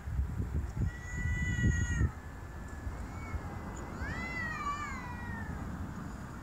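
Domestic cats yowling at each other in a hostile standoff. A long, held yowl comes about a second in, then a wavering yowl that rises and falls past the middle. A low rumble runs under the first two seconds.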